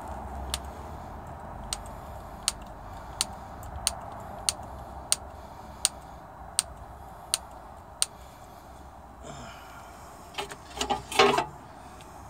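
Hand-lever grease gun being pumped into a grease fitting on the snowblower's PTO driveline: about eleven regular clicks, one every two-thirds of a second or so, then a short clatter of metal knocks near the end, the loudest part.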